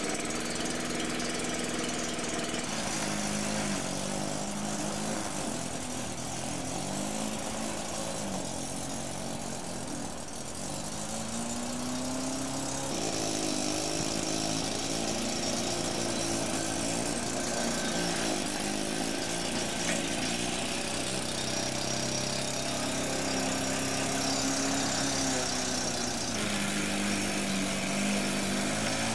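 Lawnmower's Sachs KM3 110 cc Wankel rotary engine running while mowing grass, its pitch sagging and recovering several times.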